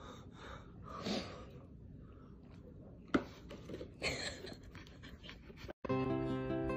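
Soft rustling of paper and a cardboard box being handled, with quiet breathing and one sharp click about three seconds in. Just before the end, an acoustic guitar tune starts.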